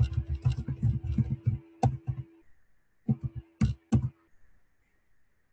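Computer keyboard typing: a quick run of keystrokes for about a second and a half, then a few sharper, louder single key presses, as a terminal command is typed and entered. After about four seconds the typing stops.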